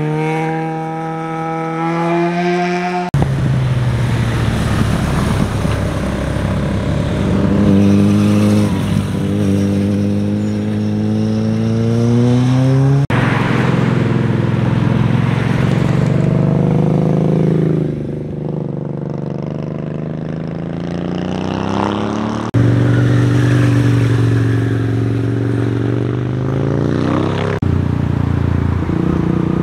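Several motorcycle passes cut one after another, each engine revving through a tight bend. The pitch rises and falls with the throttle and gear changes, and each pass ends in an abrupt cut to the next.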